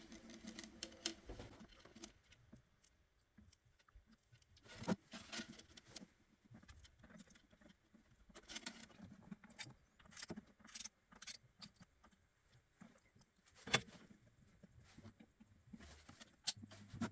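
Faint, scattered clicks and taps of a soldering iron and small tools being handled on a circuit board during reflow of a connector, with a few sharper ticks about 5 s, 14 s and 16 s in.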